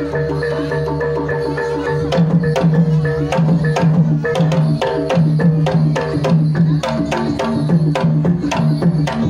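Javanese gamelan music led by a kendang hand drum. Ringing, repeating notes from the metal keyed instruments come first. About two seconds in, a fast, dense run of sharp kendang strokes starts over a pulsing low drum tone.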